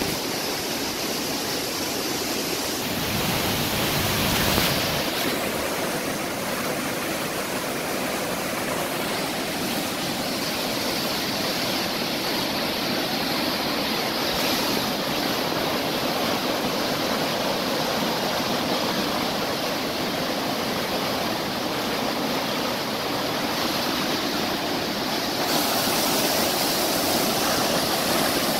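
Swollen brown floodwater after heavy rain rushing and churning through a canal in rapids, a steady loud rushing. A brief low rumble comes in between about three and five seconds in.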